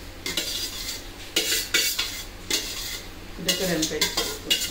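Veg fried rice being stirred and scraped in a pan with a spatula: repeated short metal-on-pan scrapes and clanks.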